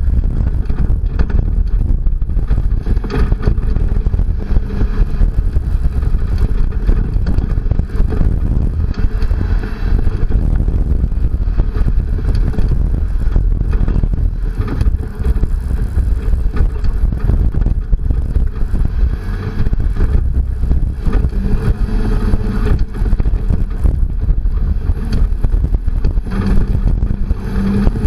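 Second-generation Toyota Tacoma prerunner driving over a rough dirt trail: a loud, steady, choppy rumble of engine, tyres and wind buffeting a camera mounted outside the truck.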